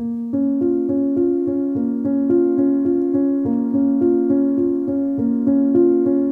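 Background music: a piano-like keyboard playing a steady pattern of repeated notes, about three a second, starting suddenly out of silence.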